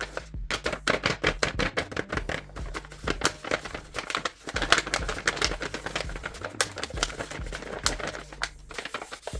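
Rapid crisp clicking and tapping of paper craft pieces being handled, several clicks a second, with a short pause about four and a half seconds in.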